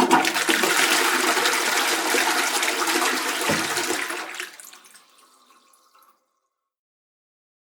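Toilet flushing: a rush of water from the start, with a brief low thud about three and a half seconds in, dying away between about four and a half and six seconds in.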